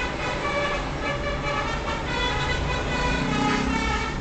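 Gumarang Jaya bus's basuri telolet horn playing a tune of short notes that change pitch every few tenths of a second. Low engine and road rumble runs underneath.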